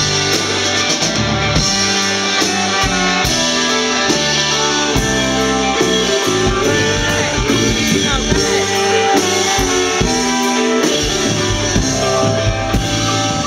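A live soul band playing a song loudly and steadily, with electric guitar and a drum kit prominent and some singing.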